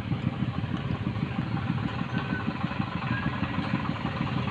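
Several Honda Winner motorcycles idling together in a queue, a steady low engine chatter with no revving.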